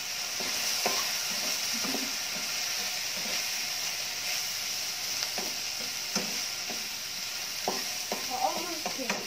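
Sliced mushrooms sizzling in a hot nonstick frying pan on a gas burner, stirred with a plastic spatula that scrapes and knocks against the pan now and then, more often near the end.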